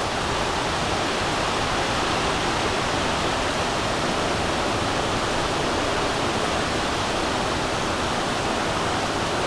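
Steady, even roar that sounds like jets overhead, heard during the early stage of a hurricane; to the person hearing it, it is not wind, and its source is unexplained.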